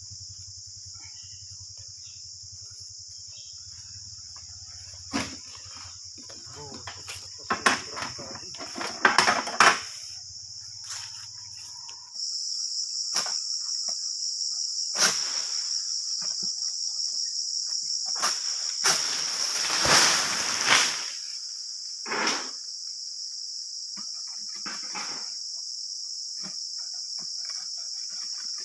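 Insects droning steadily and high-pitched, getting louder about twelve seconds in, with scattered knocks and rustles over it, the loudest around nine to ten seconds in and again around twenty seconds in.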